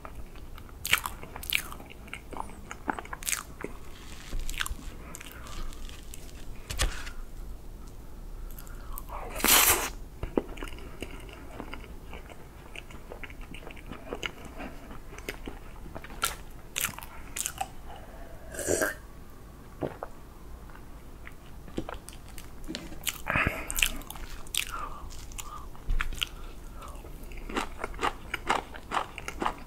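Close-miked eating of soft whipped-cream chocolate cake: chewing and wet mouth sounds with scattered clicks. A few louder noises stand out, the loudest about a third of the way in.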